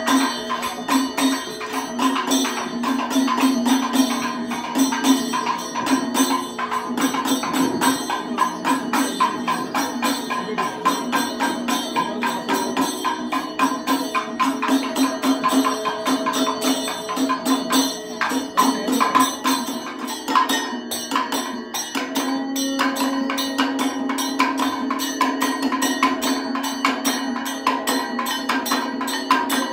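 Kathakali percussion accompaniment: drums, hand cymbals and a small gong beating a fast, dense rhythm over a steady held tone.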